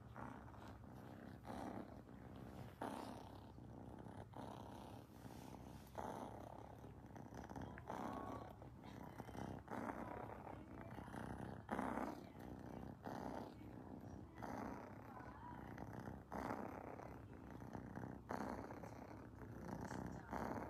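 Kitten purring steadily while having its head stroked, the purr swelling and easing with each breath about once every second or so.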